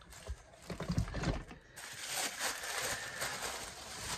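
Cardboard mystery box being handled, with a few soft knocks in the first second or so, then tissue paper rustling steadily through the second half.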